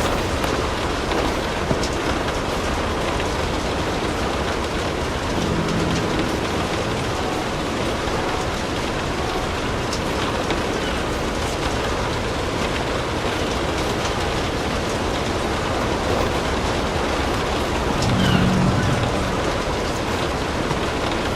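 Steady rain falling, an even hiss. A brief low rumble rises twice, faintly about a quarter of the way in and louder near the end.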